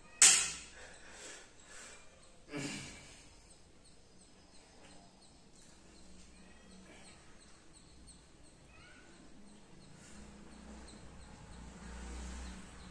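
A man bursting out laughing: a loud sudden laugh right at the start, then a second, shorter laugh about two and a half seconds in.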